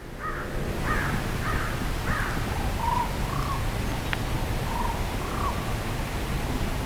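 Birds calling in a run of short calls, about two a second, that stops about a second before the end, over a steady rush of wind through cottonwood trees.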